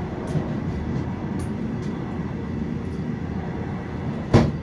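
Steady low rumble inside a stationary Vande Bharat Express coach, with a sharp knock about four and a half seconds in.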